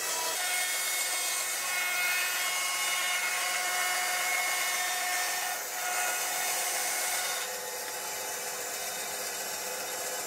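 Benchtop band saw running and cutting through an old kitchen knife's handle, a steady rasping hiss over the motor's hum. The sound eases a little about seven and a half seconds in.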